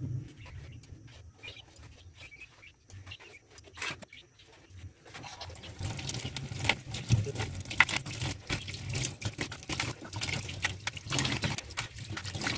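Light crackling and rustling as papery outer layers are picked off spring onions, then from about five seconds in a kitchen tap runs into a stainless steel sink, splashing as the onions are rinsed under the stream.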